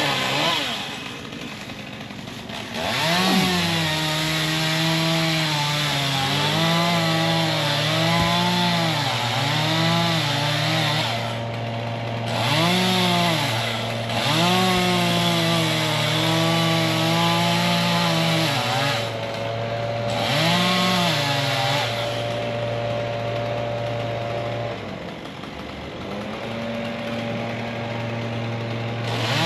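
Two-stroke chainsaw cutting into a tree trunk, its engine revving high and dipping over and over as the chain bites into the wood, with a steady lower drone beneath for most of it.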